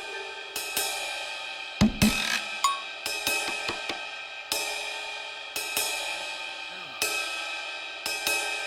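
Background music: cymbal strikes about once a second, each ringing out, with a low drum hit about two seconds in.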